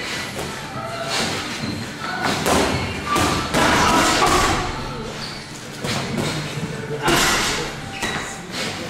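Boxing gloves landing punches during sparring: irregular thuds as blows hit gloves, headgear and body.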